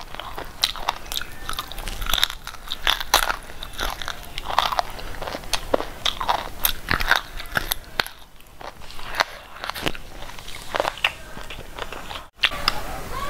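Close-miked eating: repeated crunching bites and wet chewing of crunchy food, with a brief break near the end.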